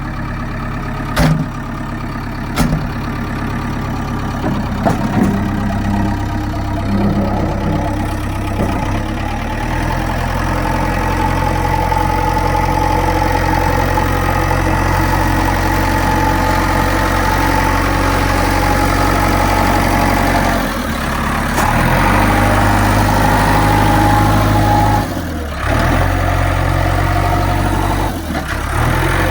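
JCB 3DX backhoe loader's diesel engine running while the machine is worked, with two sharp knocks in the first few seconds. The engine note steps up about ten seconds in and dips briefly three times near the end.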